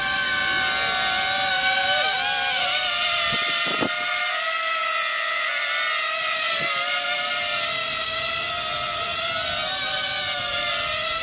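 Hover Camera Passport quadcopter hovering: the whine of its four caged propellers, several steady tones that waver slightly in pitch as it holds its position.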